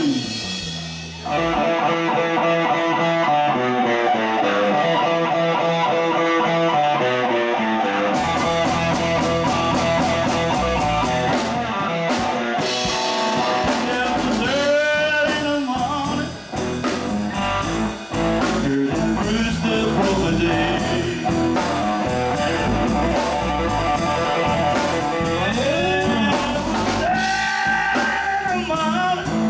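Live blues-rock band: an electric guitar plays alone at first, then the drum kit and bass guitar come in about eight seconds in and the full band plays on.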